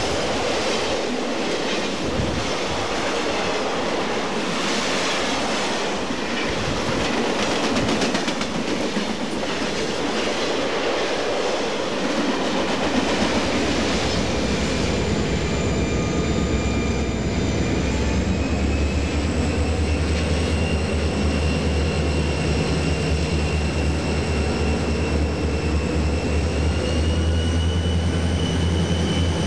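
Freight train cars rolling by with a clickety-clack of wheels over rail joints. About halfway through, a diesel locomotive's steady low engine rumble takes over, with a high whine that slowly rises in pitch.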